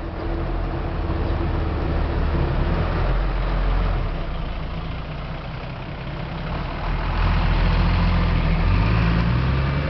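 Road vehicle engines running and passing, loudest twice, about two and about seven seconds in, with one engine rising in pitch as it accelerates near the end.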